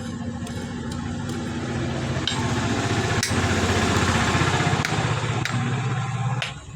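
A motor running steadily, growing louder over a few seconds and cutting off abruptly near the end, with a few sharp knocks over it.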